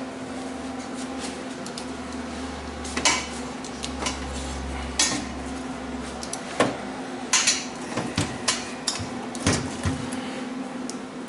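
Steel parts being handled: a string of sharp metal clanks and knocks, irregularly spaced and mostly in the middle and latter part, over a steady low hum.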